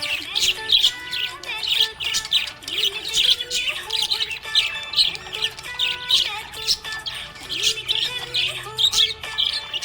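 Budgerigar chirping and chattering steadily, a dense run of quick high chirps with no break.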